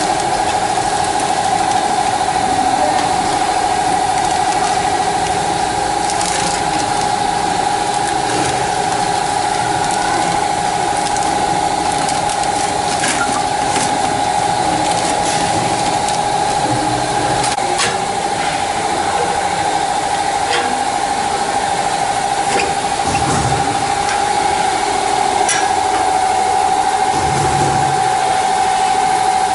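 Automatic packaging machine running: a steady motor whine with scattered clicks and ticks from its mechanism.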